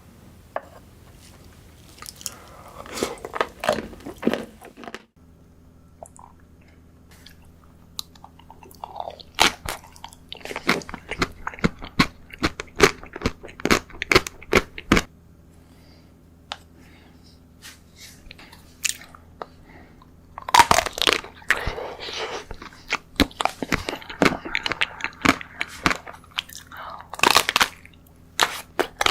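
Close-miked biting and chewing of chocolate desserts: crisp crunching comes in several bursts with quieter gaps between. A faint low hum runs underneath from about five seconds in.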